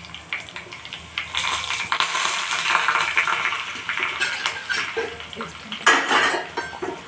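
A steel spoon scrapes and clinks against a steel plate and a small steel pan as pounded garlic-chili powder is tipped into hot tempering oil. The oil sizzles for a few seconds once the powder goes in, and more spoon clinks and scrapes follow as it is stirred.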